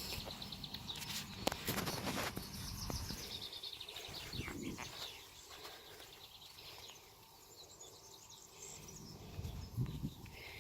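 Outdoor ambience with a bird chirping: a fast, slightly falling trill over the first few seconds, with scattered rustles and knocks.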